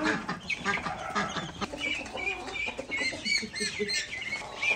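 Farmyard chickens clucking, joined from about two seconds in by a quick run of short, high chirps from young fowl or small birds.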